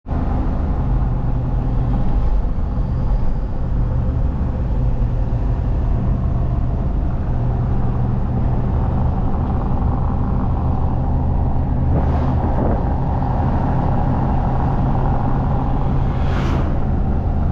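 Steady engine and road drone heard inside a moving vehicle's cabin, low and continuous. Two brief faint higher sounds come near the end.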